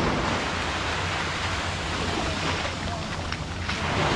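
Small sea waves breaking and washing up a sandy beach, a steady rushing surf, with some wind noise on the microphone.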